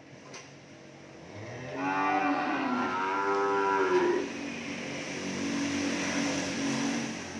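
Cattle mooing: one long, loud moo begins about a second and a half in and bends in pitch, then trails into a quieter, lower lowing that fades near the end.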